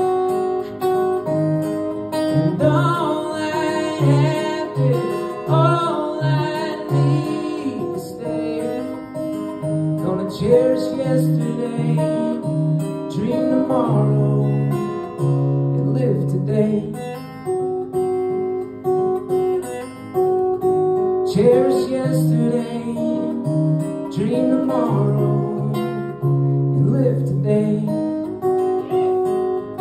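Acoustic guitar strummed and picked, with a man singing in phrases between stretches of guitar alone: a solo singer-songwriter performing live.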